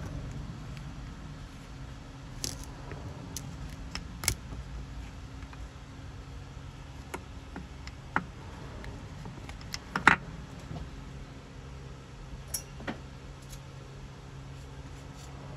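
Light metallic clicks and scrapes of a steel pick prying a wrist-pin circlip out of the pin bore of an aluminium piston, scattered through, with a quick run of louder clicks about ten seconds in.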